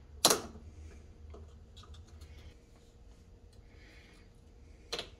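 Sharp metallic clicks from hand tools on a Matco 1/4-inch drive power ratchet's head held in a bench vise: one loud click about a third of a second in, faint ticks after it, and a second click near the end, all over a steady low hum.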